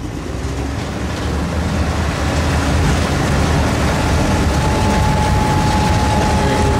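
Turbodiesel pickup truck of the 2.6 class engine running hard under heavy load, growing louder over the first couple of seconds and then holding steady with a deep rumble. A steady high whistle joins about two-thirds of the way in.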